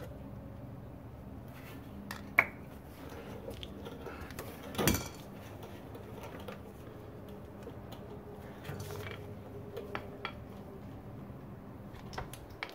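Metal hand tools clinking and knocking at intervals, with one louder clank about five seconds in, over a low steady hum.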